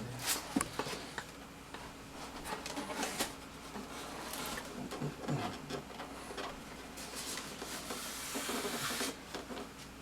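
Handling of foam model-airplane parts and their packaging: scattered light knocks and clicks with rubbing and rustling, and a longer stretch of rustling about seven to nine seconds in.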